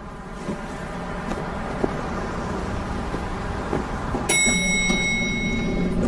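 Steady street traffic noise, then about four seconds in a single high electronic chime sounds and holds for more than a second: an elevator's arrival ding as its doors open.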